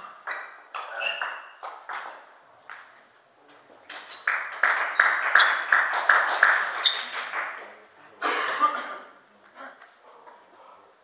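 Celluloid table tennis ball clicking: a few sharp hits at first, then a quick run of bounces on the table, about four a second, the loudest part.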